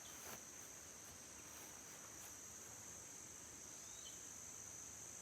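Faint steady insect chorus: a continuous high-pitched drone, with one short chirp about four seconds in.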